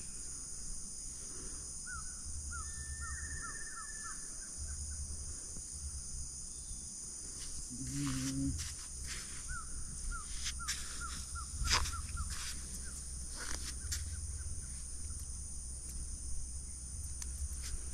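Riverside forest ambience: a steady high-pitched insect drone, with a bird giving runs of short rising notes, about four a second, once near the start and again midway.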